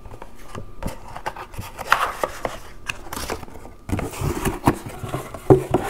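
Cardboard box and paper being handled on a table: an uneven run of light knocks, scrapes and rustles, busier in the second half.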